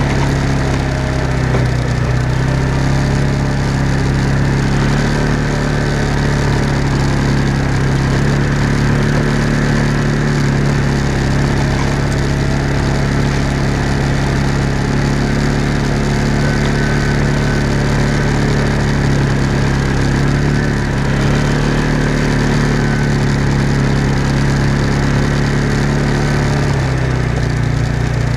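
Off-road vehicle engine running steadily while driving along a dirt trail, its pitch rising and falling slightly with the throttle a few times.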